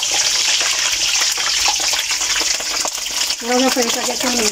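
Slit green chillies deep-frying in hot oil in a kadai: a steady sizzling hiss with fine crackle, stirred with a wire mesh skimmer. The chillies are slit so they don't burst in the oil.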